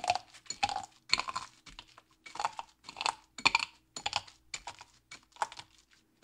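Irregular clicks and clatters of kitchen work with roasted peanuts and utensils, a cluster of sharp ticks about every half second.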